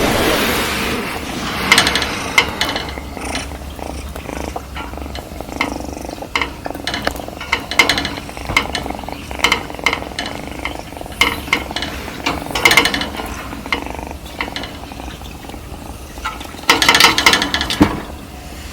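Kitten purring faintly, a steady low rumble, with scattered clicks and rustles close to the microphone. A louder pitched sound lasting about a second comes near the end.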